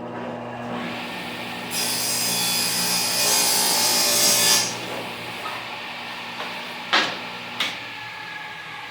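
Table saw running with a steady hum, its blade cutting through a quarter-inch drawer-bottom panel for about three seconds starting nearly two seconds in. The saw keeps running after the cut, and two sharp knocks come near the end.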